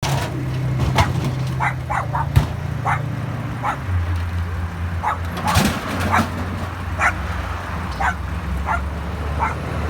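A dog barking in short, sharp yips, about a dozen at irregular spacing, over the steady low drone of a vehicle engine that drops in pitch about four seconds in.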